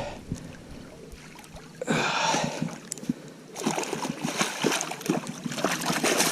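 Water splashing as a hooked northern pike thrashes at the surface while it is brought in, in two spells starting about two seconds in, with scattered knocks and rustles.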